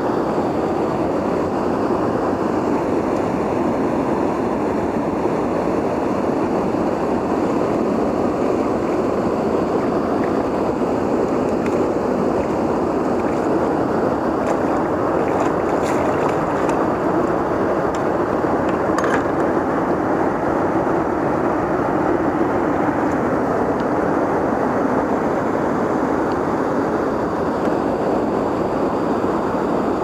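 Steady rush of flowing river water, an even hiss-like noise that holds at one level without changing.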